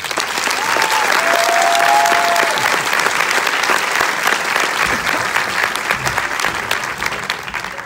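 Theatre audience applauding at the end of a song. The clapping starts all at once and thins out toward the end, with a brief cheer rising out of the crowd about a second in.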